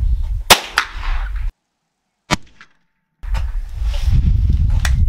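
A single shot from a single-shot .22 LR rifle about half a second in: one sharp crack with a short echo. A steady low rumble and a few small clicks follow.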